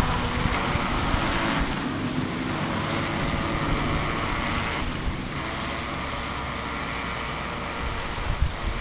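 Small electric motor of a 16-inch Tornado RC boat whining as it runs, fading out within the first couple of seconds as the boat stops on the water. After that, only wind rushing over the microphone.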